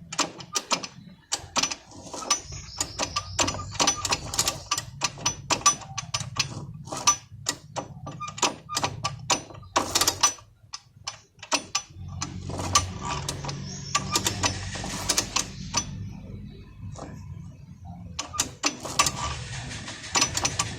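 Many quick, irregular metallic clicks and clatters from hand work on the open valve gear of a Hero Honda CBZ Xtreme engine, over a low hum, with short lulls about halfway through and again about three quarters in.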